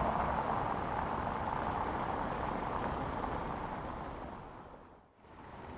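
A car passing on a concrete road, its tyre and engine noise fading as it moves away and dying out about five seconds in; the noise of another vehicle begins to rise near the end.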